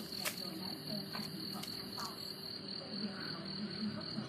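Crickets chirping: a steady, high, evenly pulsing trill, with a few faint clicks over it.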